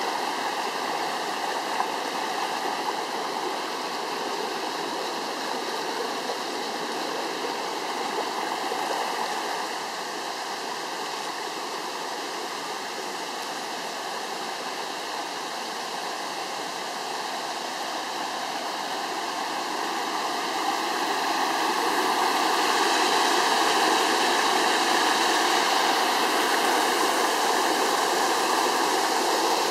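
Forest stream swollen with muddy floodwater after heavy rain, rushing steadily. It grows louder about two-thirds of the way in, as the water turns to tumbling white water over a small drop.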